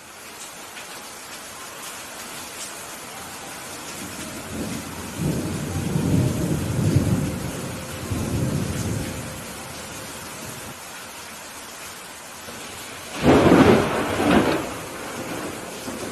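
Steady rain hissing throughout, with thunder: a low rolling rumble from about four to nine seconds in, then a loud, sharp thunderclap near the end that cracks twice in quick succession.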